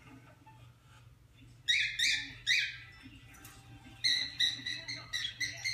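Cockatiel calling: three loud calls that slide down in pitch about two seconds in, then a quick run of short, even-pitched chirps near the end.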